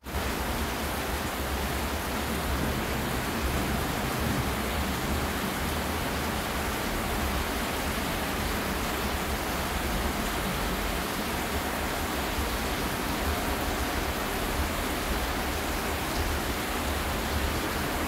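Steady rain falling, an even hiss with no breaks.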